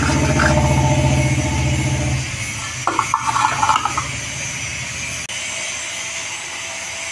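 A motor runs with a low, steady, fast-pulsing hum and stops about two seconds in. About a second later comes a short rattling clatter, as the steel door hinge is set against the aluminium frame.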